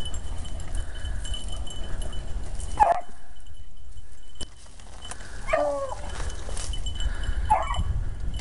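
Beagle hounds baying on a rabbit's trail: three short, separate bays, over a low rumble.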